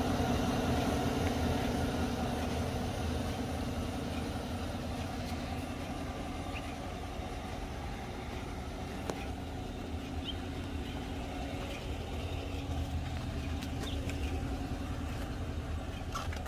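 Chevrolet Silverado pickup's engine idling steadily.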